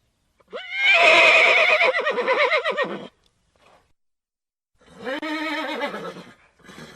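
Horse neighing: a loud whinny that rises sharply, then quavers and falls over about two and a half seconds. About five seconds in comes a shorter, lower call.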